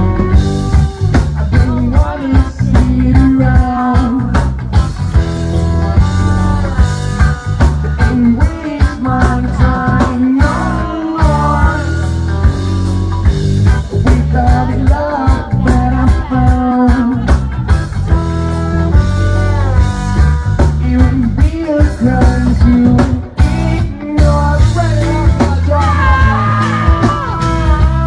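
A live band playing loud with a singer on lead vocal: electric guitar over a heavy bass line and a steady drum beat.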